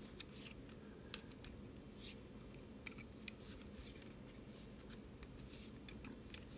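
Wooden double-pointed knitting needles clicking lightly against each other while chunky yarn is knitted, with soft rubbing of yarn and hands between the clicks; the sharpest click comes about a second in, another past three seconds.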